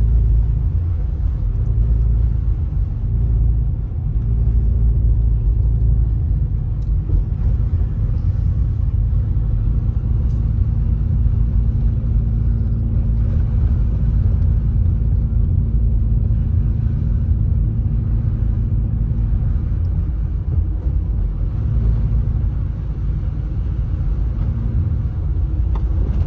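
Steady low rumble of a car driving, heard from inside the cabin: road noise from the tyres on wet, slushy pavement under a faint, even engine hum.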